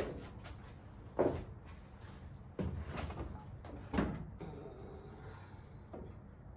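Knocks and clicks of spotlight mounting hardware being handled and fitted by hand, about four sharp ones in the first four seconds, then quieter.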